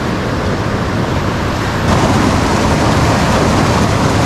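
River rapids rushing over rocks: a steady loud roar of whitewater that gets louder about two seconds in.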